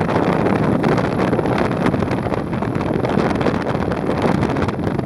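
Steady rush of wind over the microphone mixed with the road noise of a vehicle driving along.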